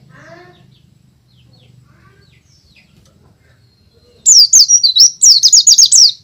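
White-eye (pleci) singing: after a few seconds of faint scattered chirps, a loud burst of rapid, high whistled notes begins near the end, in two quick phrases with a brief break between them.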